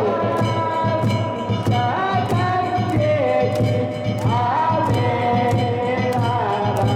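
A solo voice singing a slow ballad with long held notes over an amplified backing track with a steady light beat.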